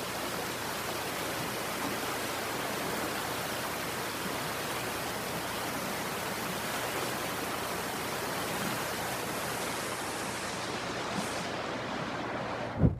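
Floodwater rushing fast and turbulent over a causeway, a steady, continuous wash of noise. Near the end a loud thump, after which the water sound drops away sharply.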